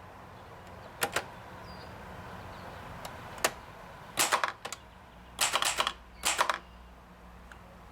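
1935 Remington 3B typewriter being typed on: irregular keystrokes, a few single strikes and then quick clusters of several, with short pauses between.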